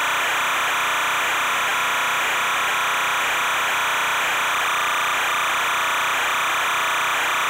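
Steady, unchanging hiss with a buzzy, flickering band in the middle register, with no rise, fall or break.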